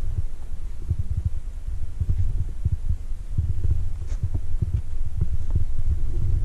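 Wind buffeting the camera microphone: an irregular low rumble of thumps, with a few faint clicks.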